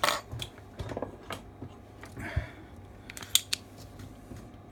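Small metal hand tools handled on an electronics workbench: a few separate sharp clicks and light knocks, the loudest about three and a half seconds in.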